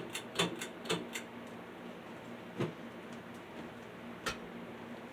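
Five-blade ceiling fan starting up on its low speed: a faint steady hum, with a quick run of sharp clicks in the first second and two more single clicks later.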